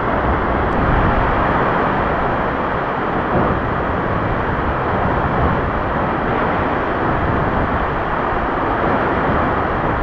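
Madakaripura waterfall's falling water: a steady, loud rushing roar.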